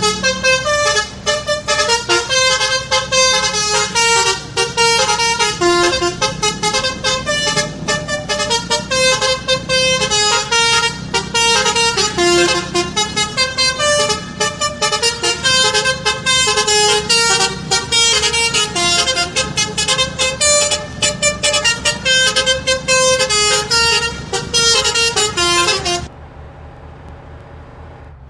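A bus's Basuri musical horn (telolet horn) playing a long multi-note melody, its tones stepping up and down like a tune. It cuts off about two seconds before the end, leaving a low steady rumble.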